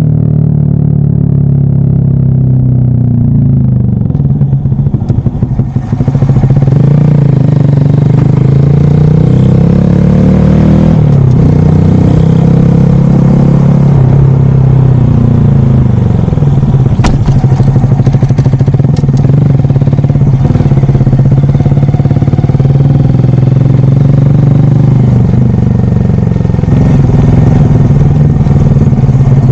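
Honda Monkey 125's single-cylinder engine running at low revs, then pulling away and riding, its note rising and falling repeatedly as the throttle is opened and eased. Wind rushes over the microphone from about five seconds in.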